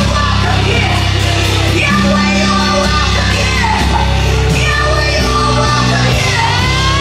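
Gospel worship music: singers over a band with bass guitar and drums, the bass holding long notes that change every second or two.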